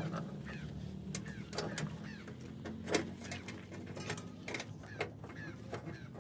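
Small birds chirping in short repeated calls, with a steady low hum and a few sharp clicks or taps, the loudest about three seconds in.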